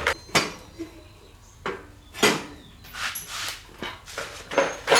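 Intermittent knocks and clatter of tools and metal parts being handled during motorbike repair work: a handful of sharp strikes with brief scraping and rattling between them.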